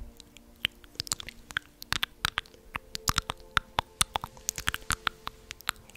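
Close-miked ASMR 'plucking' sounds: a quick, irregular run of crisp clicks and snaps, several a second, with a faint steady hum underneath.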